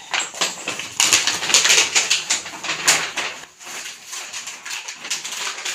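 Plastic packaging bag crinkling and rustling as it is handled, loudest in the first half and quieter after about three seconds.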